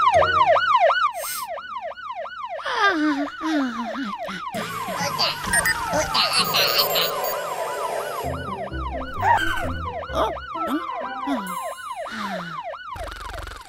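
Cartoon fire-truck siren sounding as a fast rising-and-falling yelp, about four sweeps a second, with cartoon music mixed in from a few seconds in.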